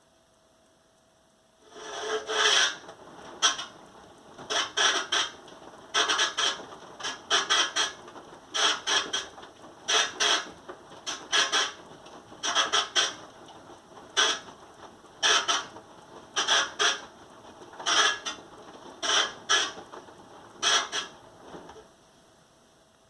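An LG appliance making a strange, rhythmic rubbing, scraping noise, about one stroke a second, starting about two seconds in and stopping shortly before the end.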